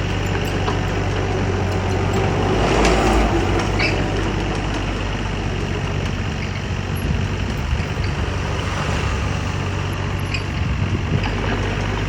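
JCB backhoe loader's diesel engine running steadily at work, swelling louder for a moment about three seconds in.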